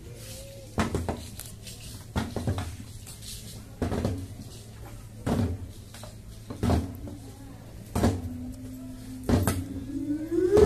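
Rhythmic thumps keeping time for a Tuyuka indigenous fish dance, one heavy beat about every second and a half. Near the end a long chanted note is held and then rises in pitch.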